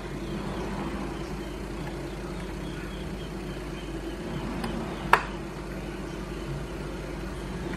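Two sharp clicks about five seconds in, half a second apart, the second louder: metal tweezers clicking against the laptop keyboard's F10 key and its membrane. A steady low hum runs underneath.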